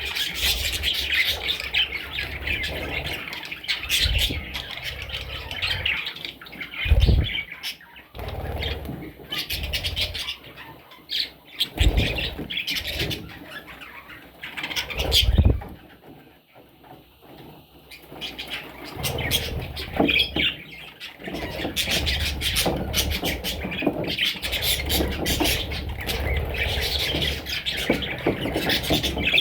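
Parrots chirping and squawking continuously, with clicks and several loud low thumps, and a brief lull about halfway through.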